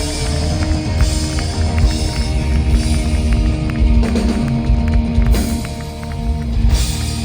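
Rock band playing live: guitars holding sustained chords over a steady drum beat, with cymbal crashes.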